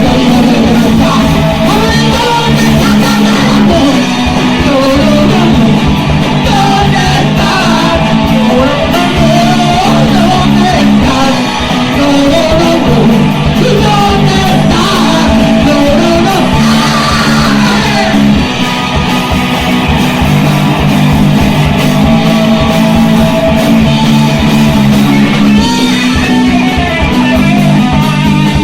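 Rock band demo recording: electric guitars, bass and drums playing, with a sung melody that wavers up and down through the middle of the passage.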